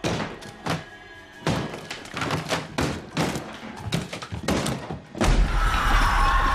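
Horror-film soundtrack: a rapid, irregular run of heavy thuds and knocks. About five seconds in, a loud, sustained low rumble takes over, with a held note of music swelling above it.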